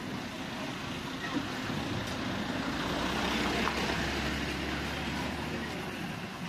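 An engine droning as it passes, swelling to its loudest about midway and then fading.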